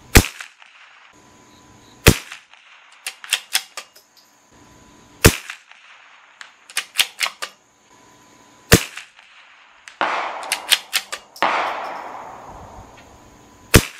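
Five rifle shots from a CZ 457 bolt-action .22 LR firing subsonic 40-grain Norma Tech 22 rounds, each a sharp crack a few seconds apart. Quieter clicks and clatter come between the shots.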